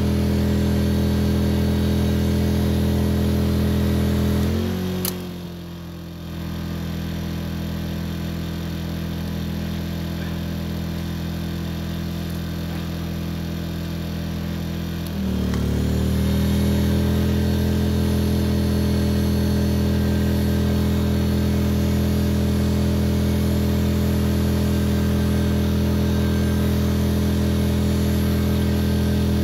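Small portable generator engine running steadily while powering an electric heat gun. About four and a half seconds in, the heat gun is switched off and the engine note falls and quietens as the load drops away. About fifteen seconds in, the gun is switched back on and the engine note rises back up under load.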